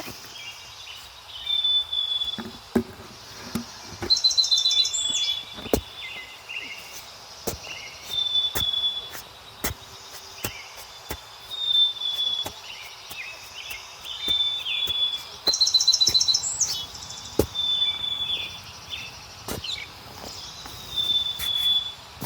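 Birds calling: a short high whistle repeated about every second and a half, with a brighter trill twice, over scattered sharp clicks.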